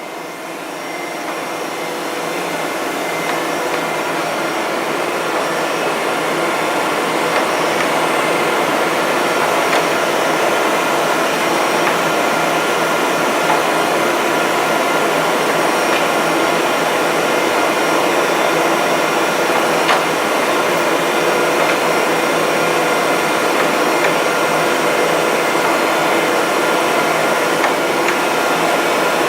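Okamoto ACC 1224 ST hydraulic surface grinder running: a steady mechanical whir that builds over the first few seconds and then holds, with an occasional light click.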